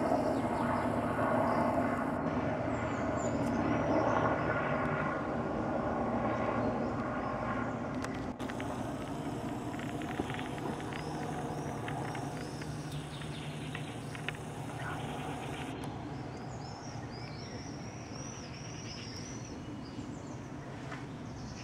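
Helicopter flying past overhead, its rotor and engine noise fading steadily as it moves away. Faint bird chirps over it, more of them near the end.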